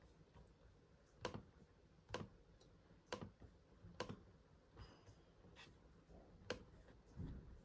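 A series of sharp light taps or knocks, five or so, roughly a second apart, with quiet in between.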